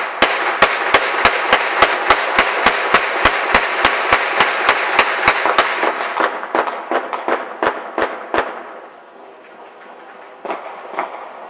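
Fireworks: a rapid, evenly spaced volley of loud bangs, about four a second, over a steady crackling. It weakens after about six seconds and stops after about eight; two more pops follow near the end.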